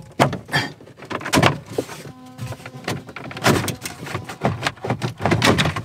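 Plastic dashboard trim being pried loose with pliers: a string of sharp clicks and snaps as its retaining clips pop free, with creaking and scraping in between and a brief squeak about two seconds in.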